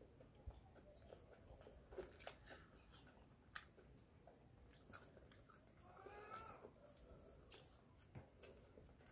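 Faint chewing and the light clicks of metal forks against plastic bowls during a meal, scattered small sounds over near silence.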